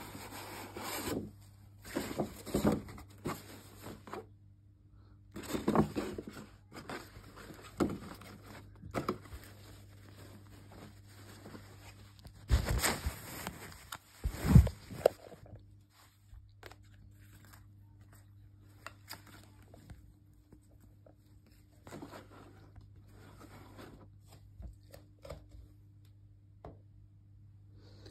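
Paper shopping bag, tissue paper and a cotton T-shirt rustling and rubbing as they are handled and unwrapped, in irregular bursts. There are two louder bumps around the middle, and only scattered faint rustles in the second half.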